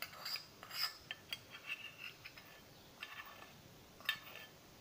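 Spoon scraping and clinking against a small tea pan as asafoetida-infused oil is poured out of it into a bowl of pickle mix: a series of light scrapes and taps, with a sharper clink a little after four seconds in.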